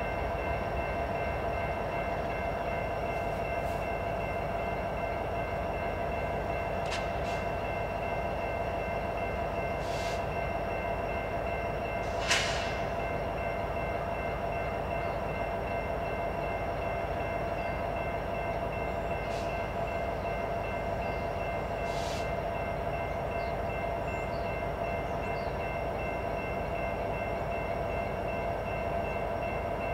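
CN diesel locomotives standing and idling: a steady low engine rumble under a constant multi-tone whine. A few short sharp clicks break in, the loudest about twelve seconds in.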